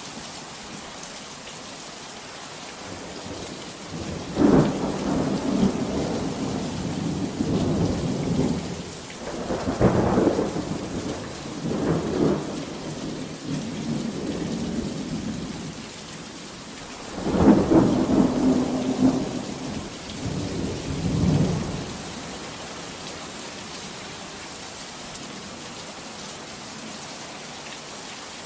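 Steady pouring rain with thunder. A loud rolling peal breaks about four seconds in and rumbles on with further cracks for about twelve seconds. A second peal follows after a short lull and dies away a little past the middle, leaving only the rain.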